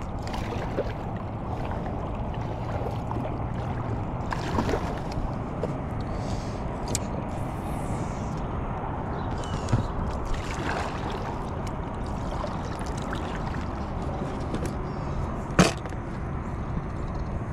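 Water sounds around a small inflatable kayak (packraft) drifting on the water, with two short sharp knocks, one about halfway through and a louder one near the end.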